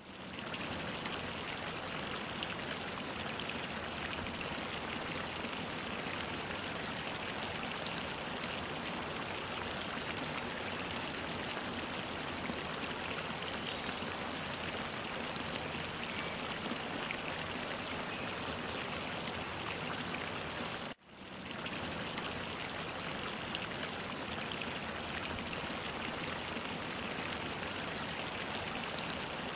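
Steady rush of running, splashing water, with a brief drop-out about two-thirds of the way through.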